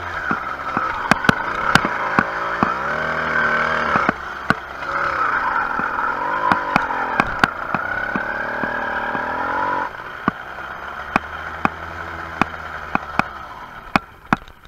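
Small engine of a motorised bicycle running under way, its pitch rising and falling with the throttle. It drops to a lower, quieter running at about ten seconds. Sharp rattling clicks sound throughout.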